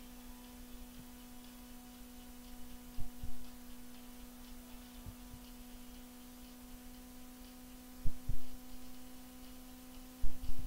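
A steady low electrical hum, broken three times by a pair of short, dull low thumps.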